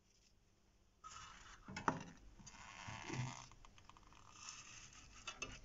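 A rusty steel hand saw being picked up and handled in a gloved hand: scraping and rustling with small clicks, and one sharp click about two seconds in.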